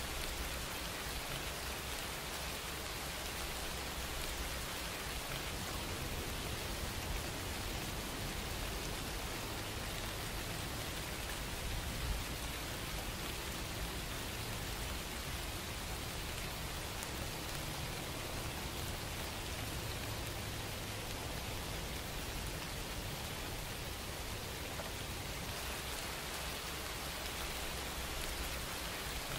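Steady, even hiss like rain, with no rhythm or pitch; one brief tick about twelve seconds in.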